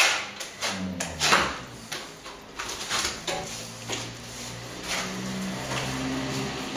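A plastering trowel scraping and knocking against a hawk loaded with sand-and-plaster mix: a quick run of sharp scrapes that thin out after about three seconds. A low steady hum comes in about halfway through.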